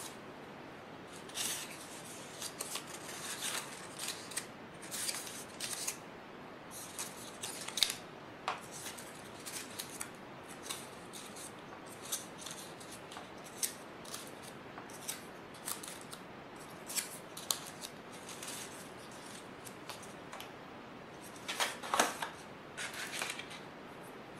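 Blue construction-paper leaf cutouts being picked up one by one and gathered in the hand: crisp paper rustles and crinkles in short, irregular bursts, with a louder cluster near the end.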